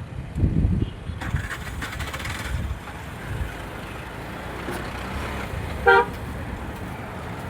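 Road traffic passing with a low rumble, and a single short vehicle horn toot about six seconds in.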